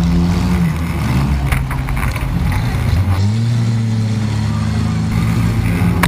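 Demolition derby cars' engines revving up and down, with a couple of sharp bangs, one about a second and a half in and one near the end.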